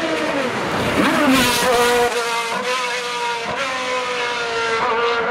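Racing sports-prototype engine at high revs as the car accelerates past, its note falling then sweeping up. It holds high after that, with brief dips at a few gear changes.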